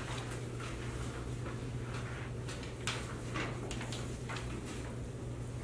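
Meeting-room room tone: a steady low hum with scattered soft rustles and small knocks of papers being handled.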